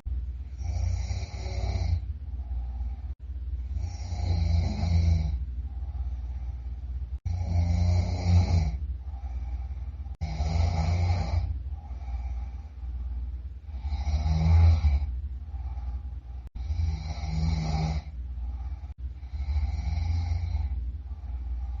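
A sleeping person snoring loudly, one snore about every three seconds, seven in all, with a quieter breath between each.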